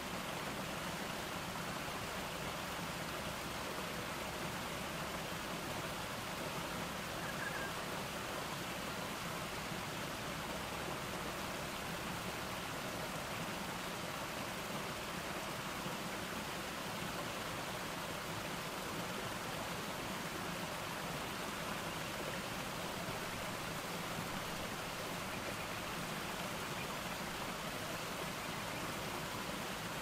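Water of a small stepped cascade tumbling over rock ledges and splashing down through the rocks below: a steady, even rush with no breaks.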